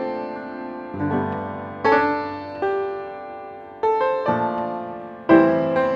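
Background piano music: slow notes and chords struck about once a second, each left to ring and fade before the next.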